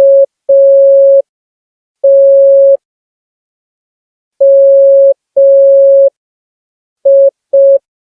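Morse code (CW) tones from a smartphone Morse code app: a single steady beep keyed slowly on and off, several long dashes with uneven gaps, then two short dots near the end.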